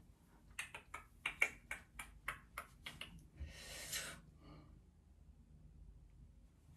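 Scissors snipping hair: a quick, uneven run of about a dozen sharp clicks over three seconds, followed by a short breath.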